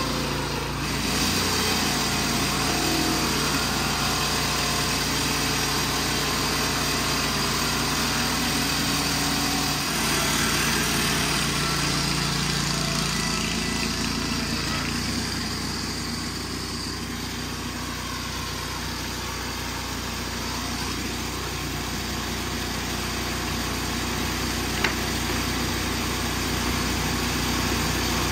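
Gas engine of a portable board-sawing machine running steadily as boards are fed through and cut, its note shifting a couple of times as the load on the saw changes. One sharp tick near the end.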